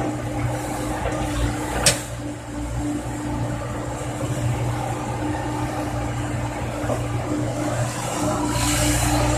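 Komatsu PC70 excavator's diesel engine running steadily with its hydraulics working while the bucket digs into soil. A single sharp clack about two seconds in, and the machine gets louder near the end as the loaded bucket comes up.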